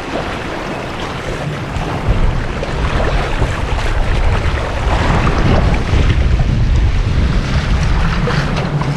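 Strong gusting wind buffeting the microphone: a heavy low rumble that swells and eases under a constant rushing hiss.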